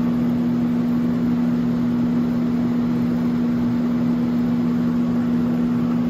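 Sharp Comfort Touch window air conditioner running: the steady rush of its fan with a constant low hum beneath.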